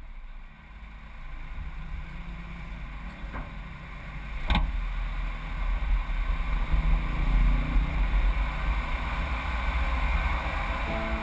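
Wind and road rumble from a moving car, picked up by a camera mounted on its front, growing louder, with a sharp knock about four and a half seconds in.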